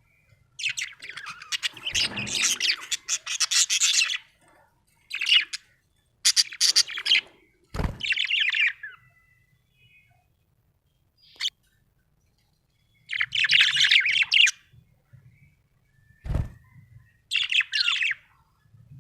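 Budgerigar chirping and warbling in bursts of chatter lasting up to a few seconds, with silent pauses between them. Two short, dull thumps, about eight seconds in and near the end.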